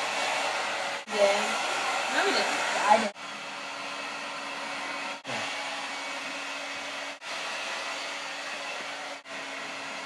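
Handheld hair dryer blowing steadily on wet hair, a whooshing airflow over a low motor hum. The sound drops out briefly about every two seconds.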